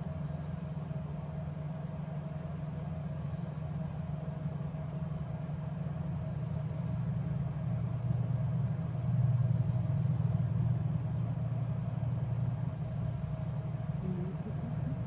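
A running engine gives a steady low rumble with a faint constant hum above it. It grows louder for a few seconds past the middle, then eases back.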